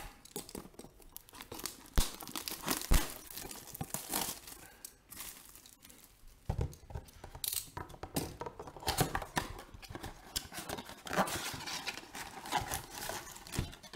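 A cardboard trading-card blaster box being torn open by hand, with tearing cardboard and wrapper and the crinkle of foil card packs as they are pulled out. A couple of sharp knocks come about two and three seconds in.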